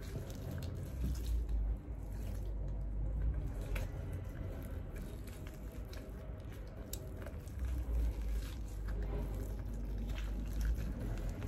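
Raw whole chicken being skinned by hand: soft wet squishing and peeling as the skin is pulled away from the flesh, with low handling bumps of the bird on a wooden cutting board now and then.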